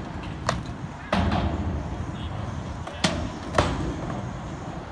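Skateboard wheels rolling over a skatepark ramp, the rolling growing louder about a second in, with a few sharp clacks of the board.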